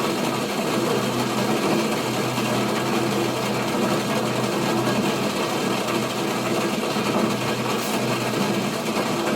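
Water at the boil, a steady even churning noise with a faint low hum underneath.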